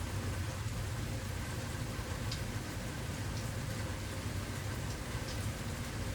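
Steady rain falling, a constant hiss with a few separate drops ticking now and then.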